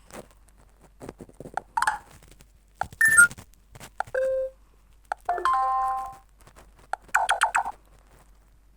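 Fly FS458 Stratus 7 phone speaker playing a quick run of short ringtone and alert-tone previews, one after another: chimes, single tones and a brief chord, each lasting under a second before the next starts. A short click comes before each one.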